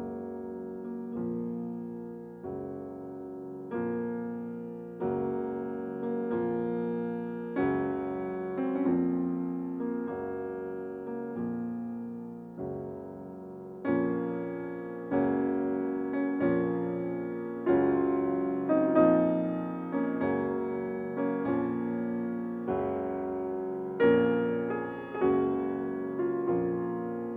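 Slow, gentle piano background music, a chord struck about every second and dying away.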